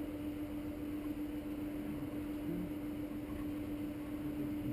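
Wind buffeting an action camera's microphone on an open hillside launch, a rough steady low rumble, with a constant low hum running underneath.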